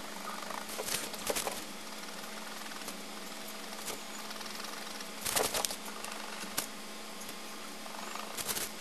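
Short bursts of scratchy drawing strokes on paper as the centre of a drawing is hatched and shaded: a cluster about a second in, another about five seconds in, and more near the end, over a steady low hum and hiss.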